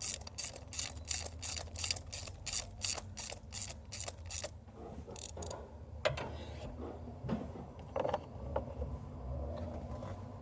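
Socket ratchet clicking in an even run of about three clicks a second while a new spark plug is turned into the 5.0 L V8's cylinder head. The clicking stops about four and a half seconds in, and a few single clicks and a couple of knocks follow.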